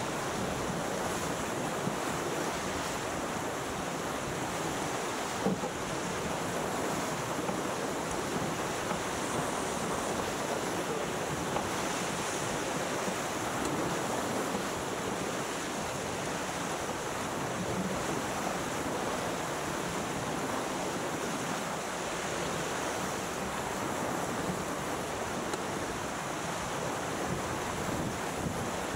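Steady rush of water and spray along the hull of a racing sailboat planing downwind, mixed with wind buffeting the microphone.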